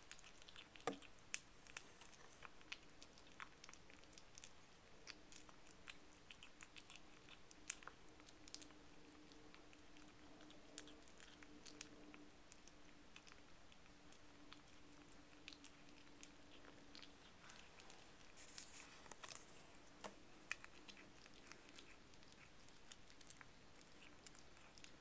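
Two-month-old kitten chewing wet cat food from a bowl: faint, quiet smacking and many small sharp clicks, with a faint steady hum through the middle.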